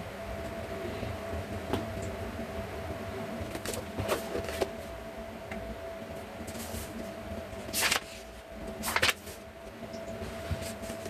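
Handling noises: a few short knocks and rustles as an open book is set on a cutting mat and pressed flat by hand, the loudest near the end, over a steady hum.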